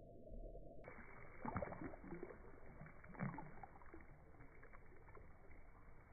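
Faint, muffled water splashing and trickling on a concrete floor as the spray from burst water balloons settles, with two louder knocks, about one and a half and three seconds in.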